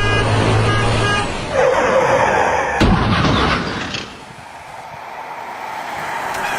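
Vehicle sound effects: a horn-like tone breaks off about a second in, a rushing noise builds, and a sharp bang comes near the middle before the noise dies down.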